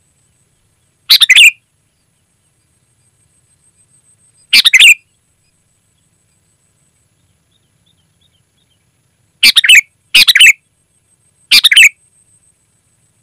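Sooty-headed bulbul (kutilang) giving short, loud calls, each about half a second long: one about a second in, one near the middle, then three in quick succession near the end.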